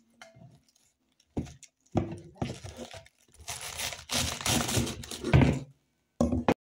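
A head of cabbage being broken apart and cut with a cleaver: its crisp leaves tear and crunch in several bursts, the last one cut off short near the end.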